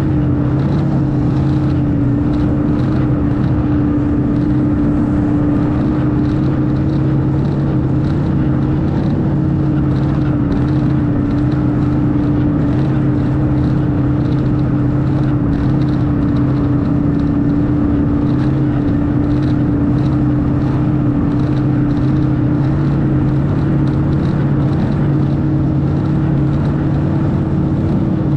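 Snowmobile engine running at a steady cruising speed while travelling, a constant drone whose pitch hardly changes.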